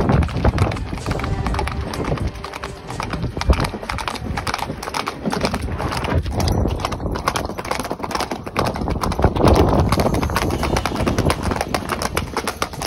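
Horses' hooves clip-clopping on a paved surface as they walk and trot, a steady run of hard knocking hoofbeats.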